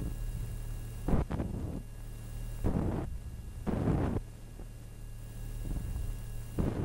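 Aerial firework shells bursting: about five booms at uneven intervals, two of them close together early on, each trailing off in an echo. Under them runs a steady low hum.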